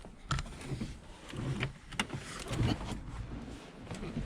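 Irregular clunks, knocks and rustling from handling inside a car, with a few sharp clicks among them.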